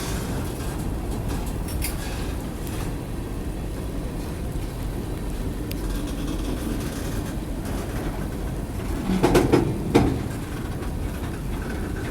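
Freight train cars rolling past on the rails, a steady rumble of wheels, with a short cluster of loud clanks and knocks about nine seconds in.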